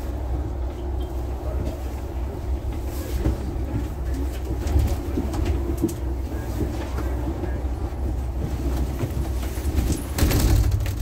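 Steady low engine and road rumble heard inside a moving double-decker bus, with scattered knocks and rattles from the bodywork, briefly louder near the end.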